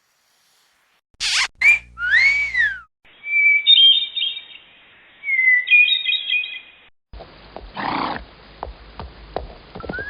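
Short whistle sound effects cut back to back. About a second in come a couple of clicks and a whistle that slides up and back down; next, a warbling, bird-like whistled trill for about four seconds; then a run of irregular clicks, with a held whistle tone starting near the end.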